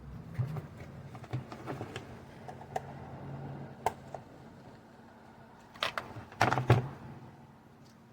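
Irregular small plastic clicks and taps, with a cluster of louder clicks about six seconds in, over a low steady hum.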